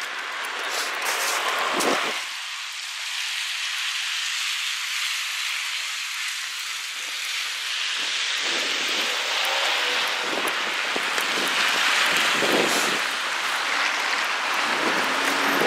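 Wet street noise on a thawing, slushy road: a steady rain-like hiss, fuller and a little louder in the second half.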